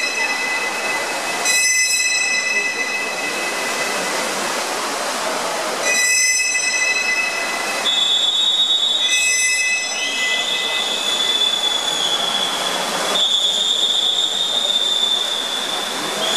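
Spectators in a reverberant indoor pool hall cheering a race with long, shrill whistle blasts, one after another with short breaks, over a steady din of crowd noise.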